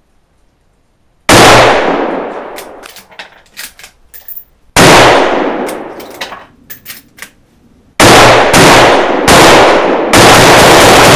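Savage 111 bolt-action rifle in .30-06 firing: two loud shots about three and a half seconds apart, each echoing away with a few metallic clicks after it as the bolt is worked, then four more shots close together in the last three seconds.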